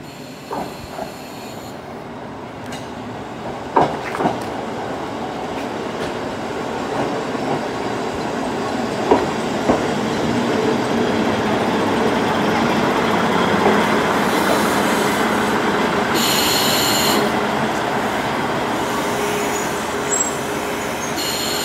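KiHa 40 diesel railcar rolling in to stop at a platform. Its wheels clack over rail joints in pairs, and the rolling noise grows as it draws alongside. A thin steady wheel squeal comes in the later half as it slows.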